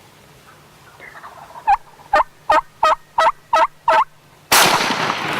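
A run of seven loud, evenly spaced turkey yelps, then a single shotgun blast about four and a half seconds in that echoes and fades away: the shot at a longbeard Osceola gobbler.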